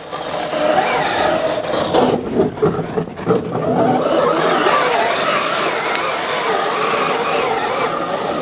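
Large 1:5 scale RC rally car with a brushless motor and all-steel gears running on dry dirt: a whine that rises and falls with the throttle over the scrabble of hard tyres sliding on the dirt, easing off briefly about two seconds in.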